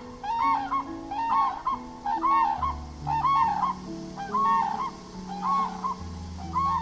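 An animal call, a short rise-and-fall note, repeated about once a second, over background music.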